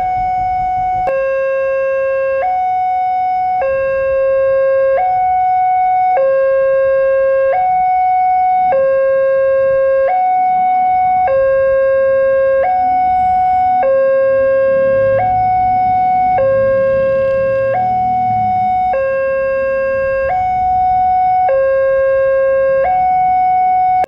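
Indonesian railway level-crossing alarm from the horn loudspeaker on the signal post: an electronic two-tone alarm switching evenly between a low and a higher tone about every 1.2 seconds. It warns that a train is approaching the closed crossing.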